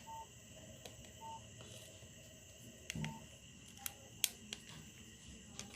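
Faint clicks of a mobile phone's keys being pressed, about half a dozen at irregular moments, with three very short, faint beeps at one pitch in the first three seconds.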